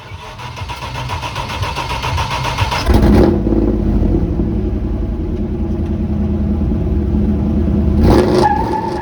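A car engine revving hard: the sound builds over the first three seconds, turns abruptly deeper and heavier about three seconds in, holds steady, and shifts again about eight seconds in.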